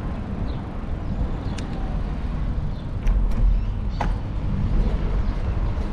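Steady low rumble of wind and road noise picked up while riding a bicycle, with a few sharp clicks scattered through it.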